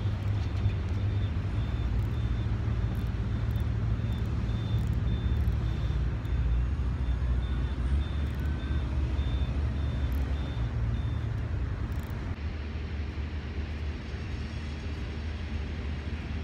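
Steady low rumble of running vehicle engines, with a high reversing-alarm beep repeating about twice a second that stops about eleven seconds in.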